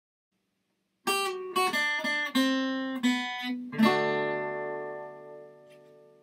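Short acoustic guitar outro music: after about a second of silence, a quick run of plucked notes, then a final strummed chord that rings out and slowly fades.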